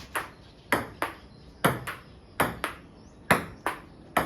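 Table tennis rally: the ball clicks off the table and the paddles in a steady back-and-forth rhythm, a bounce and a hit close together, with a new pair a little under a second apart.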